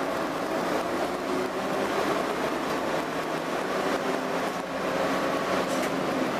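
AEC Regal IV single-decker bus (London Transport RF class) on the move, heard from inside the saloon: its underfloor diesel engine running with a steady drone under road noise and body rattle.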